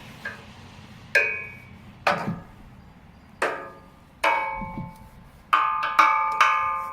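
A stick striking a resonant object about seven times at an uneven pace, each hit ringing on with a clear pitched tone; the last three hits come quicker.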